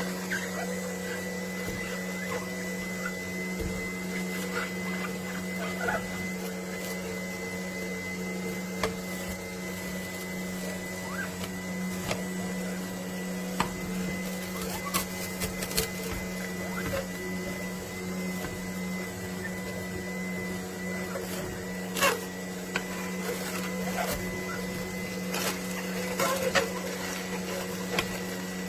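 AMZCHEF slow masticating cold-press juicer's motor running with a steady hum, with scattered sharp clicks and cracks.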